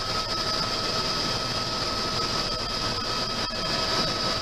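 Tour helicopter in flight, heard from inside the cabin: a steady engine and rotor drone with a high, unchanging whine running through it.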